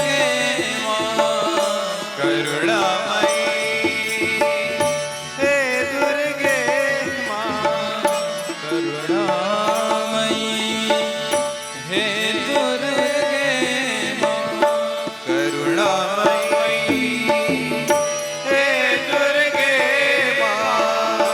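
Indian devotional music with tabla and a gliding melody line, part of a Durga bhajan.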